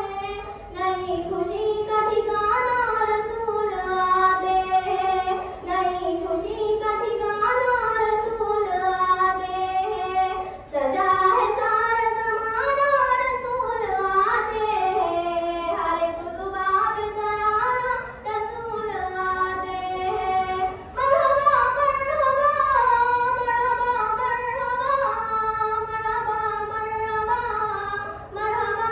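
A schoolgirl singing a naat, an Urdu devotional poem in praise of the Prophet, solo and unaccompanied, in long held, ornamented phrases with short breaths between them.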